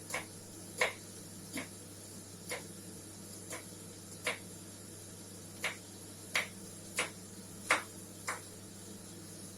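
Knife tapping down on a cutting board while slicing onion for a salad: about a dozen light, separate knocks at an uneven pace, over a steady low hum.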